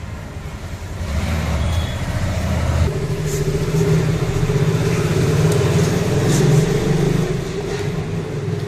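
A motor vehicle engine running steadily, its note changing about three seconds in, with a few faint clicks on top.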